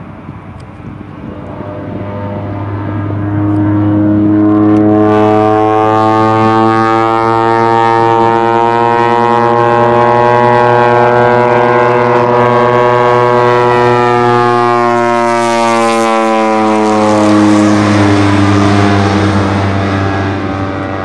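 A De Havilland DHC-2 Turbo Beaver floatplane's PT6A turboprop engine and propeller flying past overhead: a steady pitched drone that swells about three seconds in and holds loud. Its pitch slides down as the plane passes, with a rush of noise, then it fades near the end.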